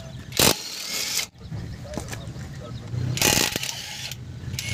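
Cordless impact wrench hammering in two bursts of about a second each on the bolts that clamp a Suzuki DA64's front strut to its steering knuckle.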